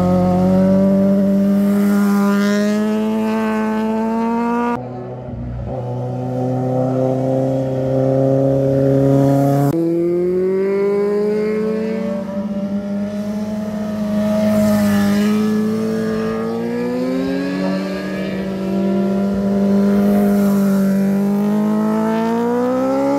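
Motorcycle engines accelerating out of a hairpin bend, each rising steadily in pitch as the bike pulls away. Several bikes are heard in turn, with sudden changes from one to the next about five and ten seconds in.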